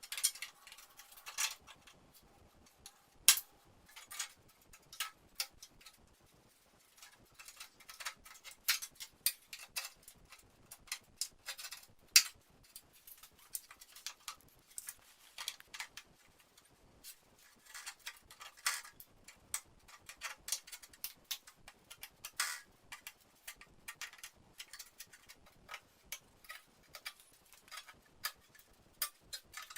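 Irregular sharp clicks and light taps of hand work on metal and plastic parts, sometimes several a second, with a few louder knocks.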